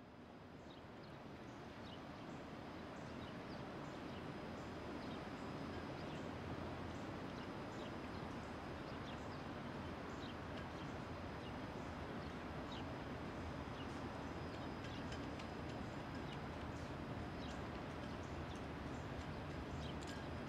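Distant EMD GP38-2 diesel locomotive, with its 16-cylinder two-stroke engine, giving a low, steady rumble as it approaches, growing louder over the first few seconds. Birds chirp in short, scattered calls over it.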